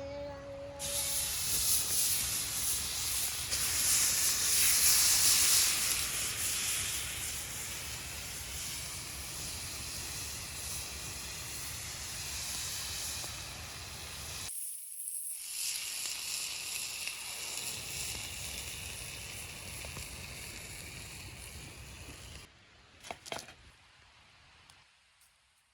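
Food sizzling over a campfire, a steady hiss that breaks off suddenly about halfway through and resumes, then fades with a few sharp clicks near the end.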